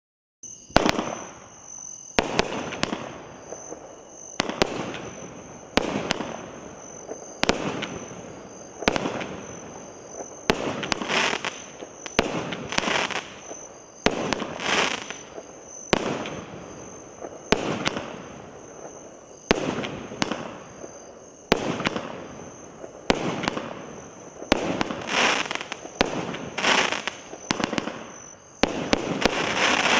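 Multi-shot consumer firework cake firing its 19 shots in sequence: sharp reports roughly every one and a half to two seconds, with crackling that swells after several of them from the crackling-rain effects.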